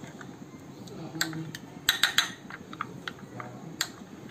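Metal spoon clinking against a small glass bowl while stirring a cornstarch slurry: a few sharp taps at uneven intervals, with a quick run of three about two seconds in.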